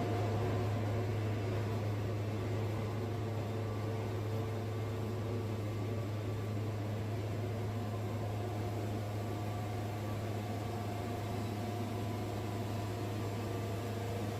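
Wood-Mizer band sawmill running, a steady unbroken hum.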